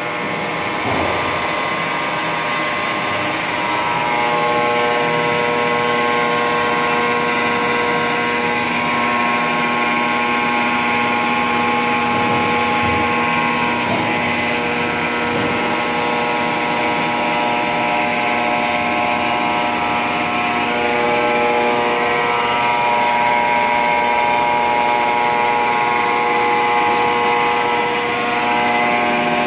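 Clausing Boravia SUS63H2000 engine lathe running under power, its spindle turning and its headstock gearing giving a steady hum of several held tones. The tones shift about four seconds in and again about two-thirds of the way through.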